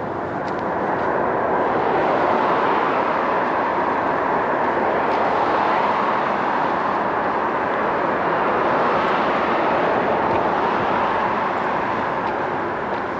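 Steady rushing noise of passing motor traffic, swelling during the first couple of seconds and easing off slowly near the end.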